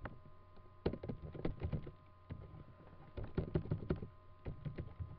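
Typing on a computer keyboard: quick runs of key clicks in a few bursts, entering a file name.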